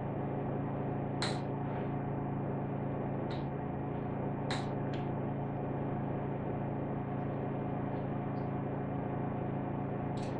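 Steady electrical hum of the computer and room, with a handful of faint, short mouse clicks spread through it as installer prompts are clicked through.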